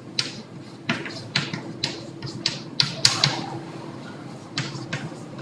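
Chalk writing on a blackboard: a quick, irregular run of about a dozen sharp taps and short scratches as the strokes are made. A steady low hum sits underneath.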